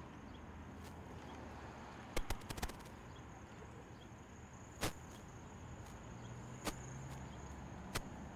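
Quiet open-air ambience with a faint steady low rumble and a thin, steady high-pitched whine that sets in about three seconds in, broken by scattered sharp clicks and knocks: a quick cluster of four about two seconds in, then single ones near five, seven and eight seconds.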